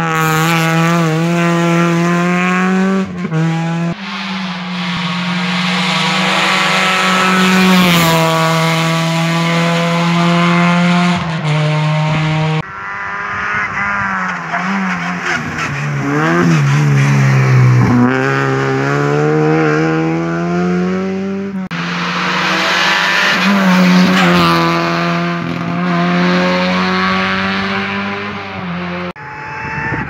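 Rally car engines at high revs on a tarmac stage, held flat out with gear changes and the pitch dropping and climbing again as a car brakes for a bend and powers away. Several car passes follow one another with abrupt cuts between them.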